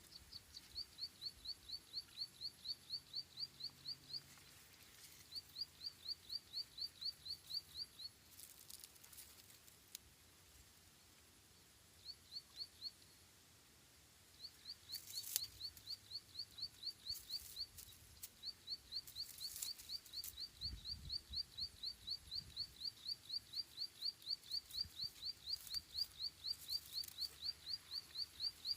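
A small bird giving runs of short, high, rising chirps at about five a second. The runs last from one to several seconds, with pauses between them. A few brief rustling sounds come in between.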